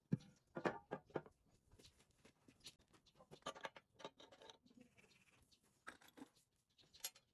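Irregular light clicks and knocks of tools and air compressor parts being handled, with a few sharper strikes in the first second.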